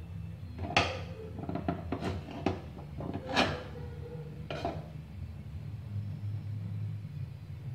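Kitchenware being handled off to the side: half a dozen sharp clinks and knocks, the loudest about three and a half seconds in, over a steady low hum.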